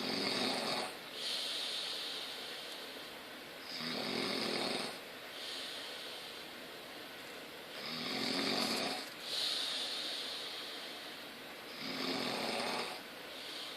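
A sleeping person snoring: four loud snores, one about every four seconds. Each snore is followed by a softer, longer breathy hiss.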